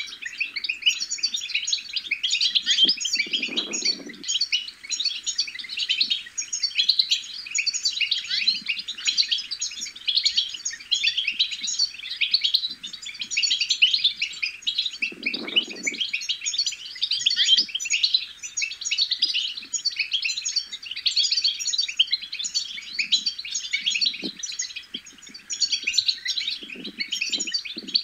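European goldfinch twittering: a rapid, unbroken stream of bright chirps and trills. Two short low thuds come through about 3 seconds and 15 seconds in.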